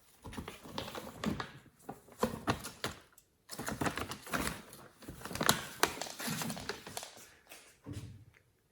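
A bag rustling and crinkling as kittens play with it: irregular runs of quick crackles and taps, with a brief pause a little over three seconds in.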